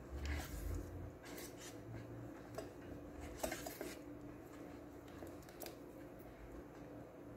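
A spatula stirring thick melted chocolate in an Oster electric rice cooker's inner pot: irregular scrapes and soft knocks against the pot, the loudest about three and a half seconds in, over a faint steady hum.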